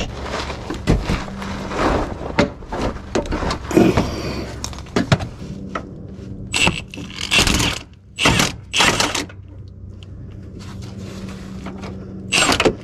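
Socket wrench on a long stack of extensions with a swivel, worked against a 15 mm starter bolt to loosen it: metal clanks, clicks and scrapes, then several short bursts of noise in the middle and one more near the end.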